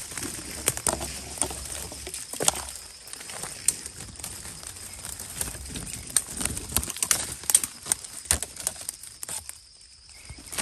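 Dry leaves, twigs and brush rustling and crackling with irregular sharp snaps as someone pushes through forest undergrowth. It dies down briefly near the end.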